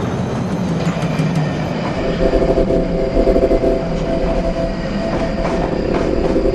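A train running on rails, a loud steady rush of noise joined about two seconds in by a steady set of humming tones.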